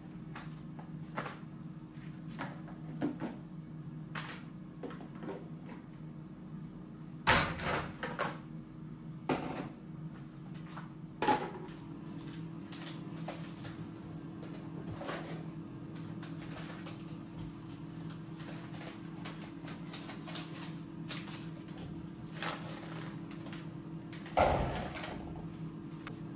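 Kitchen cupboard doors and drawers opening and closing, with sharp knocks and clicks of handling, the loudest about seven and eleven seconds in and near the end, over a steady low appliance hum.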